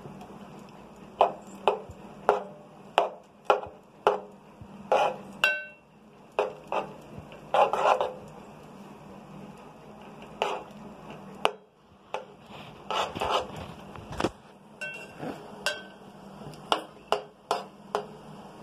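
A spatula stirring instant noodles in water in an aluminium pot, knocking and scraping against the pot's sides in irregular clacks, some with a brief metallic ring, over a low steady hum.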